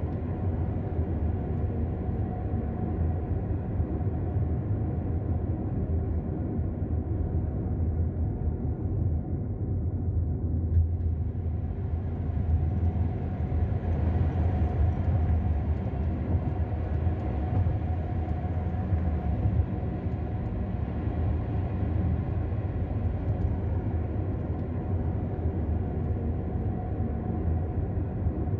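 Road noise of a car driving at motorway speed, heard from inside the cabin: a steady low rumble of tyres and engine. It turns a little brighter and hissier for a few seconds around the middle.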